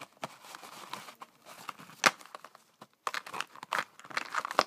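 Thin plastic packaging crinkling and crackling as it is handled, in irregular crackles with one sharp, louder crackle about two seconds in and a busier run of crackles in the last second and a half.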